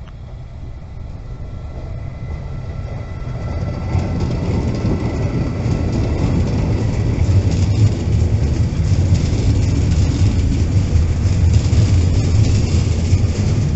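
Siemens Vectron electric freight locomotive (EU46) passing, with a thin steady whine as it approaches, followed by its train of car-carrier wagons rolling past with a steady rumble. The sound builds over the first four seconds, then stays loud.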